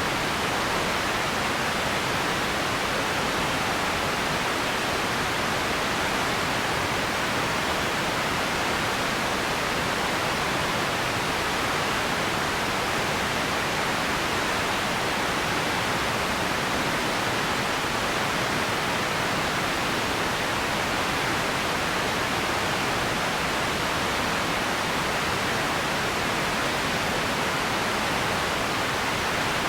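Steady, even hiss of ambience noise, strongest in the upper middle and with no events or changes: an empty background noise bed.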